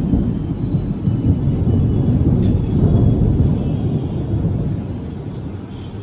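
Rolling thunder: a deep, loud rumble that swells to its loudest two to three seconds in and then dies away.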